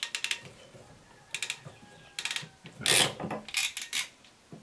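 Ratcheting PEX crimp tool clicking in several short runs of rapid clicks as its handles are squeezed shut, crimping a fitting onto red PEX water line.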